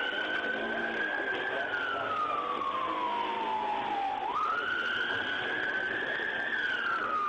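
Police car siren on a wail pattern: it sweeps up sharply, holds high, then glides slowly down, about once every five seconds.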